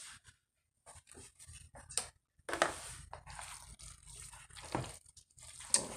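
A bare hand squishing and mixing moist cornbread dressing in a plastic bowl: scattered wet squelches and crackles that grow denser and busier about halfway through.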